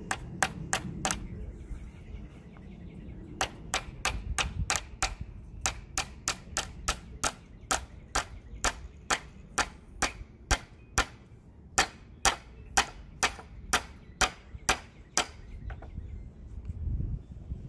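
Hammer driving nails into wooden raised-bed boards: a few sharp blows, a short pause, then a steady run of blows at about two to three a second for some twelve seconds.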